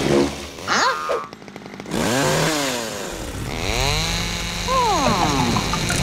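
Cartoon chainsaw sound effect. A brief rapid ticking comes about a second in, then from about two seconds a steady running hum whose pitch sweeps up and down repeatedly as the saw revs.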